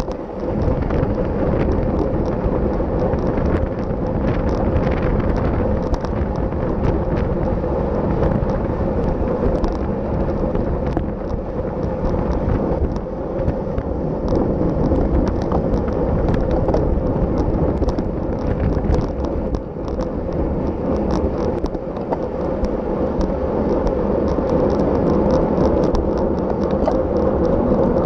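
Wind buffeting the microphone of a camera riding on a racing bicycle, mixed with tyre and road rumble. A steady hum holds one pitch underneath, with scattered small clicks.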